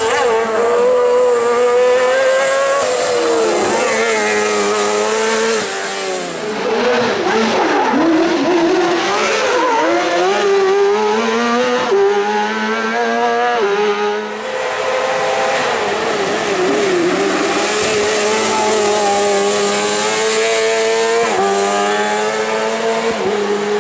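Motorcycle-engined kart-cross buggy driven hard, its high-revving engine note climbing, dipping and wavering as it shifts gear and works through corners, with sudden pitch drops at several gear changes.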